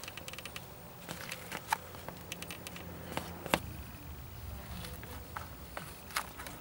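Faint, scattered light clicks and taps of hand work on the car's front wheel hub, with one sharper click about three and a half seconds in.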